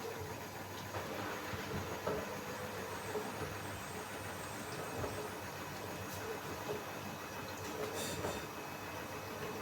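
Samsung AddWash WW70K5410WW washing machine running mid-cycle: a steady motor hum and rumble from the turning drum, with scattered light clicks and knocks.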